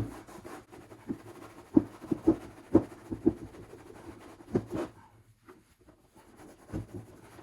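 Rag rubbing and scraping softened glue residue off a Gold Cube sluice tray, in short uneven strokes with a few light knocks. The strokes pause briefly about five seconds in.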